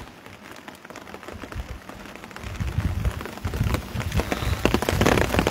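Rain coming down hard, its drops making many sharp ticks close to the microphone, with low rumbling on the microphone. It grows louder about halfway through.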